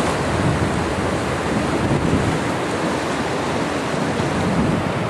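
Fast river rapids rushing steadily, a loud even wash of whitewater.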